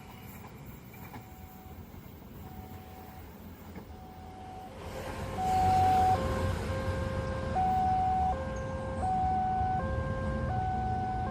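Electronic level-crossing warning alarm: faint repeated single beeps at first, then from about five seconds in a louder, steady alternation of two tones, about one and a half seconds per cycle, over a low rumble.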